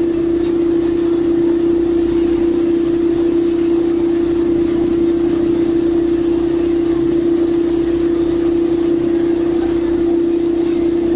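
Heavy sheet-pile driving machinery running steadily with a loud, constant hum on one unchanging pitch, without hammer blows.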